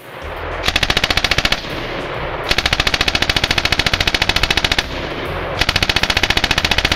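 Water-cooled machine gun firing full-auto in three long bursts of rapid, evenly spaced shots, the middle burst the longest.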